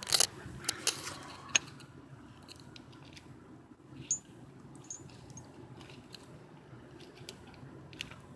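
Small metal parts of a disc brake caliper being handled and fitted by hand: sharp clicks and clinks, several in the first two seconds, then fainter scattered taps, with two brief faint high squeaks midway.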